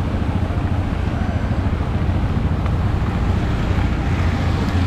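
Steady low rumble of a moving vehicle's engine and road noise, even throughout.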